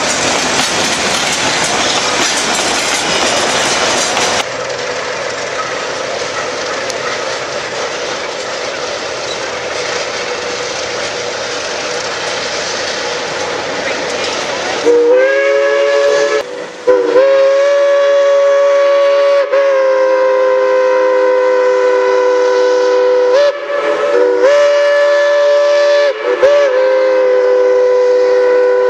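Train rolling past with a steady rumble and clatter of wheels on rail. About halfway through, a locomotive's chime whistle sounds several long blasts on a chord of notes, each blast sliding up to pitch as it starts.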